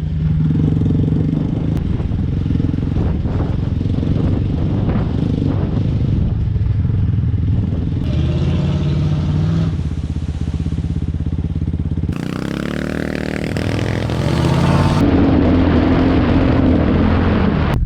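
Vehicle engine running on an off-road trail, with knocks and rattles in the first few seconds and the engine revving up, its pitch rising, about twelve seconds in.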